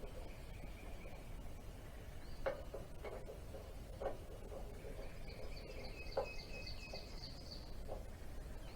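About five scattered metallic clinks and taps from hand tools being worked on the engine, with a bird singing high thin notes and a quick trill in the background.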